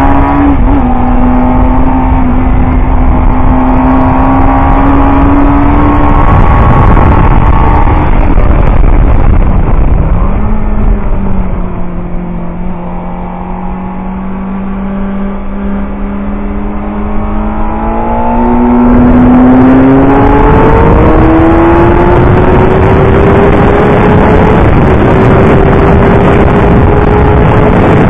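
Suzuki GSX-R750 K4 inline-four engine heard from on board at high revs, over heavy wind noise. About ten seconds in, the rider rolls off the throttle and the pitch drops for a corner; the engine runs quieter and lower for several seconds. It then accelerates hard, the pitch climbing steadily down the next straight.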